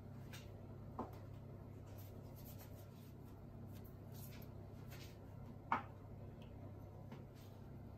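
Faint light scratching and rustling as dried seasoning and mixed herbs are shaken from small jars onto raw chicken breast, over a steady low hum. Two sharp clicks break in, a small one about a second in and a louder one near six seconds in.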